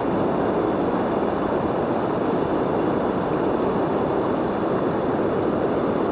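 Steady rush of a river pouring over rocks and a dam's waterfall, an even noise with no breaks.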